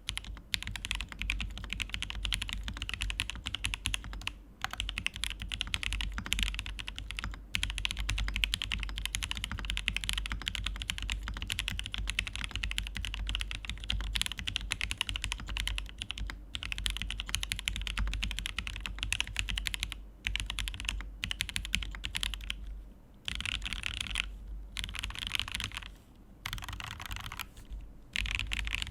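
Fast typing on a Praxis mechanical keyboard with a POM plate, lubed and filmed Alpaca linear switches and Zeal stabilisers: a rapid, continuous run of keystrokes with short pauses, breaking into separate bursts near the end. A low hum sits underneath and stops about three quarters of the way through.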